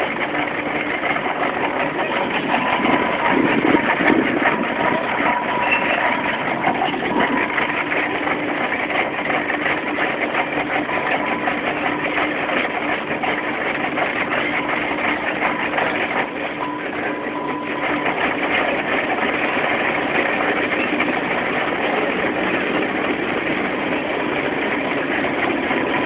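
Steam ploughing engine working the field, heard as a steady mechanical running noise with a constant hum.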